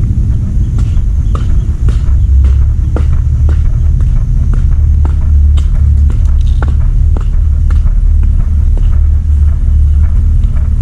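Strong wind buffeting the camera's microphone with a heavy, uneven low rumble, with light footsteps ticking about twice a second as the camera is carried along.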